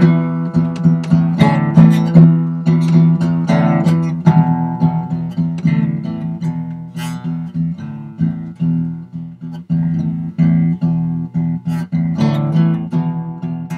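Acoustic guitar music: quick plucked and strummed notes over a steady low note.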